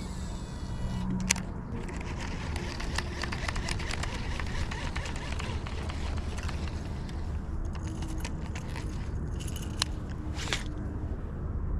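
A steady low outdoor rumble with scattered faint clicks and crackles, a few of them louder, near the start and again about ten seconds in.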